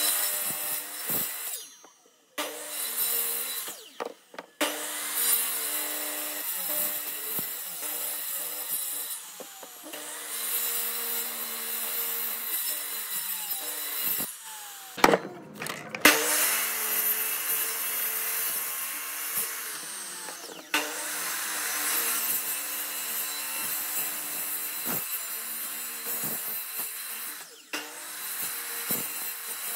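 Electric compound miter saw running, its motor humming steadily while the spinning blade cuts down through a small round log. The sound breaks off suddenly several times, and there is a sharp knock about 15 seconds in.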